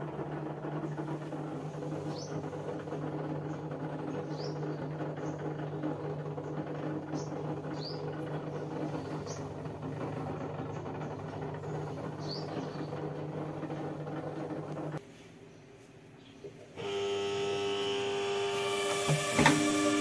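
LG front-loading washing machine running with a steady mechanical hum for about fifteen seconds, with faint bird chirps now and then. It stops abruptly, and background music begins shortly after.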